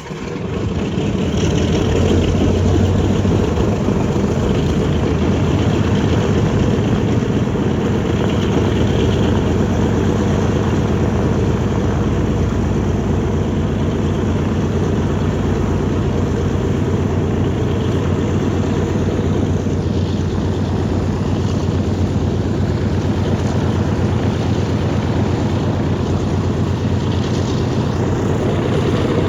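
B-29 Superfortress 'Doc''s Wright R-3350 radial piston engines and propellers running steadily and loud. The sound comes up sharply in the first second, then holds an even, dense drone.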